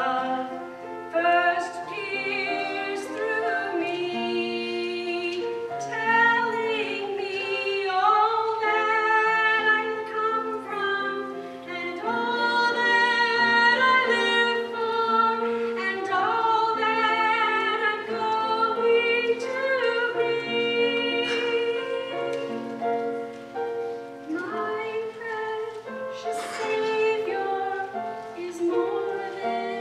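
A woman singing a slow song into a microphone over instrumental accompaniment, with long held notes.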